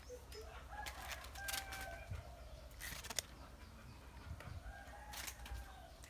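Faint domestic chickens clucking and a rooster crowing, with a few sharp clicks scattered through.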